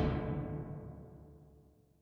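The end of a hockey goal song: the last rock chord rings out and fades to silence within about a second and a half, the higher notes dying first.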